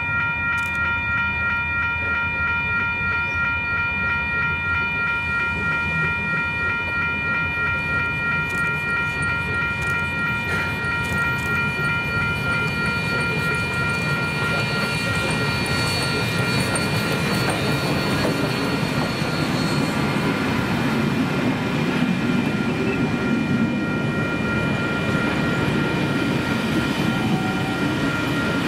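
NSW 32 class 4-6-0 steam locomotive passing with a train of heritage carriages: a steady train rumble that grows into the rolling clatter of carriage wheels on the rails over the second half. A steady high tone rings through the first half and fades out about halfway.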